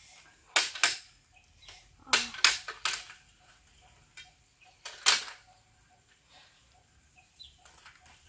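Aluminium folding ladder's hinge locks and rails clacking as a section is swung open and locked: two sharp metallic clacks, a quick run of four, then one more.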